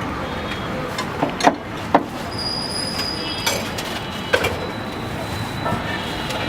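Metal spatula knocking and scraping on a flat iron tawa, a handful of sharp clanks over steady background noise, with a brief high-pitched squeal about two and a half seconds in.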